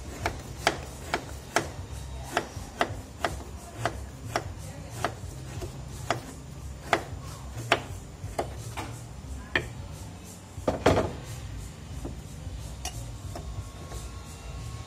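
Kitchen knife chopping a block of palm sugar on a plastic cutting board: a steady series of sharp knocks, roughly two a second, with a louder knock about eleven seconds in and fewer knocks near the end.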